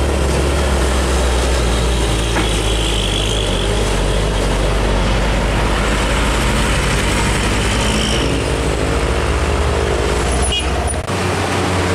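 Heavy diesel trucks, Hino 500s among them, driving past at low speed, their engines running in a steady low hum amid road traffic. The engine sound changes suddenly near the end.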